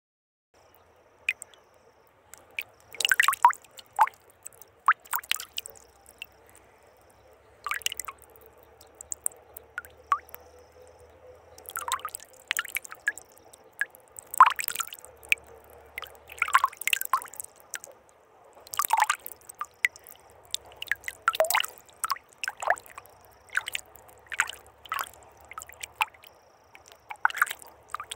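Two pens writing at the same time on paper taped over cardboard: irregular clusters of short scratchy strokes and taps, with a faint steady hum underneath.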